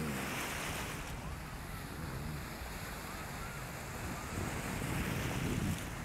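Small waves breaking and washing over shallow water at the shoreline, a steady hiss of surf, with wind buffeting the microphone in a low rumble that grows stronger in the second half.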